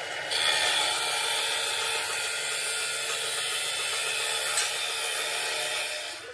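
Abrasive chop saw's cut-off wheel grinding through a steel plate clamped in its vise: a steady, high, harsh grinding that jumps up a moment after the start and fades out near the end.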